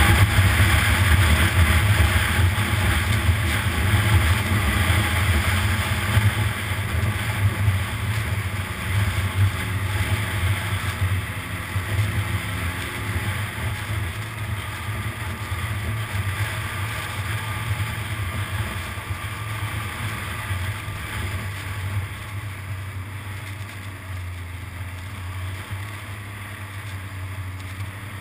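Snowmobile engine running steadily while riding along a snowy trail, with wind rushing over the microphone. The noise gradually gets quieter.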